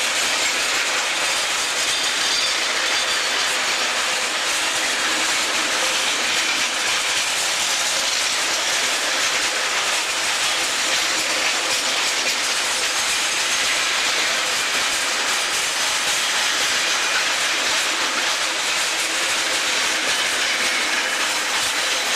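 Covered freight wagons of a passing freight train rolling by close at hand: a steady, unbroken noise of steel wheels running on the rails.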